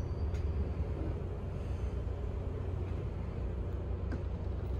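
GO Transit bilevel train standing at the platform, running with a steady low rumble, with a faint click or two.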